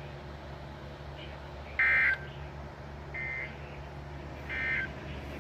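Three short end-of-message data bursts from a NOAA Weather Radio broadcast, the warbling two-tone SAME signal that closes the weekly test. Each burst lasts under half a second and they come about a second and a half apart, the first the loudest, over a steady low radio hum.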